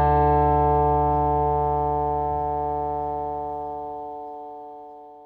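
Background music: a held chord rings out and slowly fades away.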